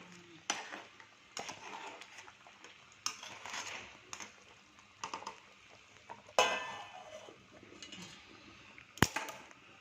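Metal spoon stirring a pot of crab curry, scraping and clinking against the pot with scattered knocks, and a sharp clink near the end.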